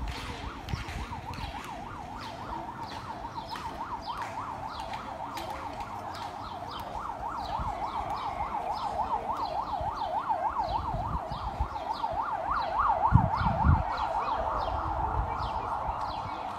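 Emergency-vehicle siren in a fast yelp, warbling rapidly up and down, growing louder from about halfway through. Two short dull thumps come late on.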